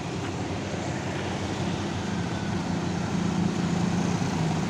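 Slow traffic in a jam: bus and motorcycle engines running, a steady low engine hum over road noise that grows gradually louder.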